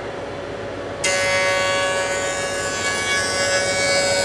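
Jointer running with its motor humming, then about a second in the cutterhead starts cutting the edge of a cherry board fed along the fence, a louder, steady high-pitched whine and hiss of knives shaving the wood that carries on as the board is pushed through.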